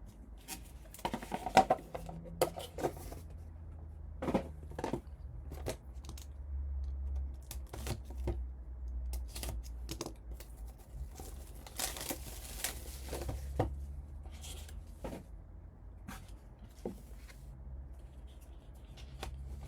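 Trading-card packaging being torn and crinkled as cards are unwrapped, with scattered taps and clicks of handling. The longest stretch of tearing comes about twelve seconds in, over a low steady hum.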